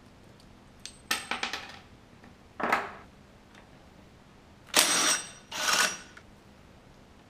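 Metal parts of a Honda Cub's centrifugal clutch clinking and rattling as they are worked loose and taken off the engine: a few light clicks and rattles, then two louder metallic clatters with a brief ring about five seconds in.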